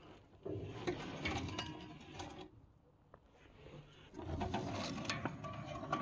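The steel blade disc of a Farmi CH 160F wood chipper being turned by hand, giving two bouts of rubbing, clicking mechanical noise about two seconds each.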